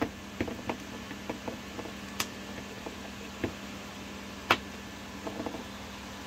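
Scattered light clicks and taps of small hand work with a screwdriver on a solid-state relay's casing and parts, two of them sharper, over a steady low hum.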